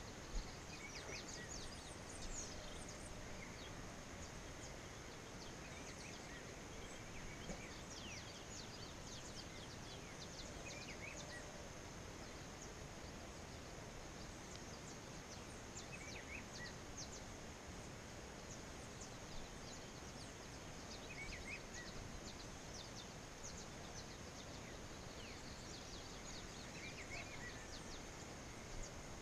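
Faint outdoor ambience: a steady high-pitched drone with many short bird chirps scattered over it, and a brief call repeated about every five seconds.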